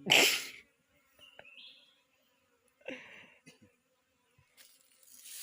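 A short, loud breathy exhale like a sigh, then near quiet with a faint bird chirp about a second and a half in and a few soft rustles.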